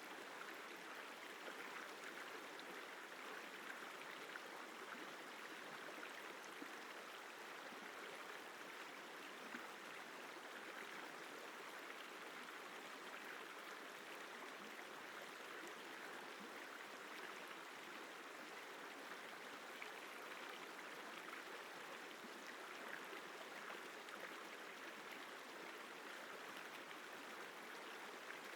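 The Isar River flowing: a steady, even rush of water that holds without breaks or changes.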